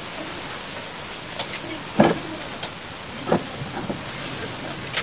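A few short knocks and clunks from fitting a vehicle battery and connecting its terminals in an engine bay, the loudest about two seconds in, over steady background noise.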